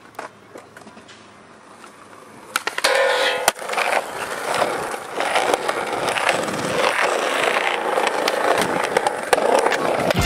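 Skateboard wheels rolling over smooth concrete, steady and much louder from about three seconds in, with a few sharp clacks of the board as the rolling starts.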